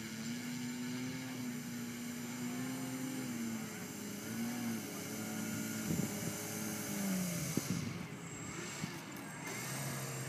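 Electric motor and propeller of a bumblebee-styled RC model airplane taxiing on grass: a low hum that wavers up and down in pitch as the throttle changes and settles lower near the end, with a couple of sharp knocks partway through.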